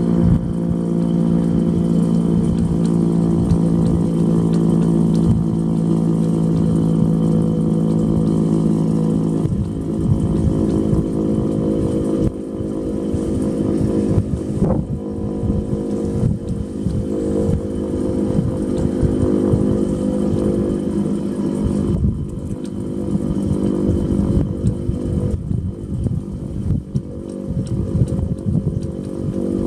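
1986 Federal Signal STH-10A dual-tone outdoor warning siren sounding a steady held chord, strongest for the first ten seconds and then growing weaker and stronger again. Heavy wind buffets the microphone throughout.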